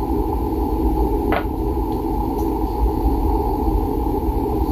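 Steady low mechanical drone of running shop equipment, with one faint tick about a second and a half in.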